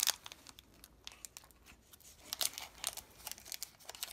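Pokémon trading-card booster pack being pulled open by hand, its foil wrapper crinkling and tearing in scattered short, sharp crackles.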